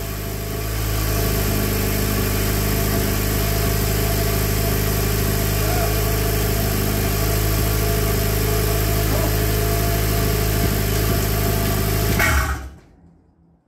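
Viking 195T turbocharged four-cylinder aircraft engine idling steadily with the throttle closed, just after starting. It is shut off near the end and stops abruptly.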